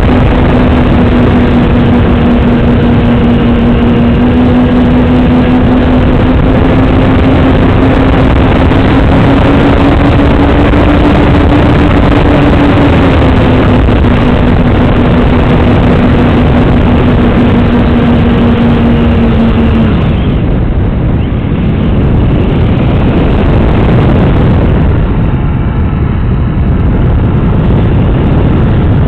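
Onboard sound of an FPV model aircraft in flight: loud wind rush on the camera's microphone under a steady motor drone that wavers slightly in pitch. The motor drone drops away about twenty seconds in, leaving the wind rush.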